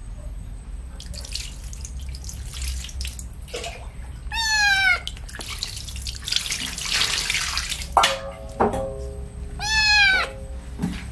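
A wet kitten meowing twice, once about four seconds in and again near the end, while water is poured and splashes over it between the calls.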